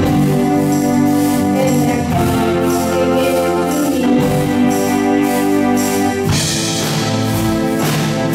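Children's rock band playing live: held guitar and keyboard chords over electric bass and drums, changing every couple of seconds, with a tambourine-like jingle on a steady beat about twice a second. A cymbal crash comes in about six seconds in.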